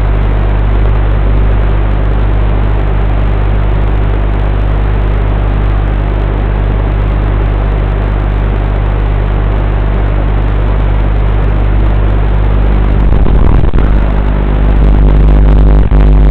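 FPV quadcopter's onboard audio: a loud, steady low hum with hiss while it sits on the ground, growing louder about thirteen seconds in as the motors throttle up for takeoff.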